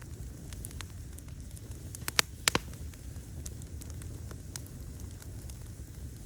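Open fire crackling: scattered small snaps over a low, steady rumble, with a cluster of three sharp pops a little past two seconds in.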